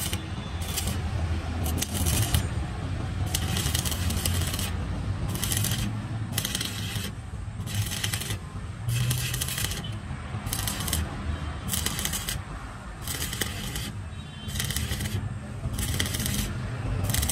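Stick (arc) welding on a steel truck chassis rail: the electrode's arc crackles and sizzles in bursts about once a second over a steady low hum. This is repair welding over a crack in a Tata 2518's chassis.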